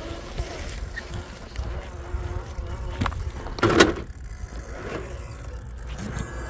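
Axial SCX10 III Gladiator RC crawler working its way down a steep muddy descent: a faint electric-motor whine with scattered knocks and scrapes of tyres and chassis on the ground. A short louder burst of noise comes about three and a half seconds in.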